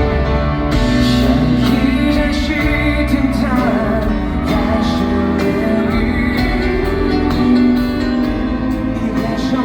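Live Mandopop concert music: a singer's voice over full band accompaniment, continuous and loud, heard through the venue's sound system.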